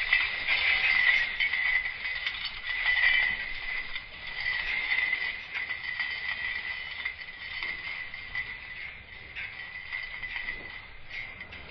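Electric fence wires rattling and clinking as a one-tusked Asian elephant pushes against them, over a steady high-pitched buzz; the sound fades gradually.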